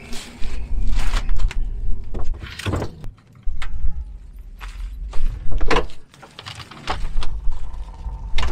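A string of knocks and clunks as batteries are set down inside a metal vehicle storage compartment, with a hinged diamond-plate aluminium compartment door swung shut.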